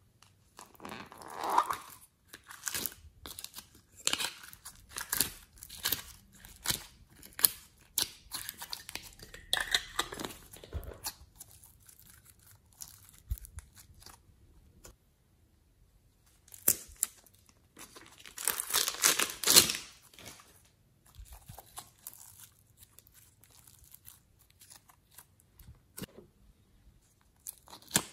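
Hands handling small plastic tubs of soft clay and slime: plastic lids and cups clicking and crinkling, and the clay pulled and squeezed with a crackling, tearing sound. The crackling comes in many short bursts and is densest and loudest about two-thirds of the way through.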